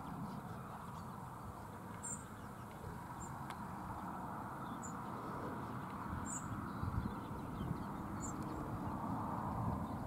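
Small birds giving short, high chirps, about five spaced a second or more apart, over a steady low rumbling noise.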